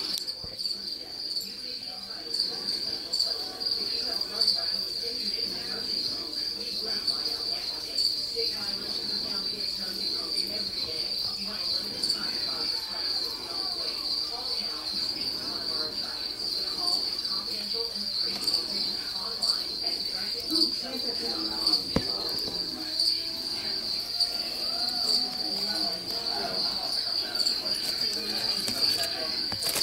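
A cricket singing: one continuous high-pitched trill that never breaks, with faint, irregular background noise beneath it.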